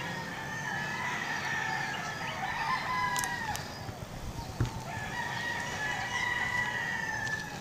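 Roosters crowing, long drawn-out calls overlapping one another, with a lull in the middle and one short knock about halfway through.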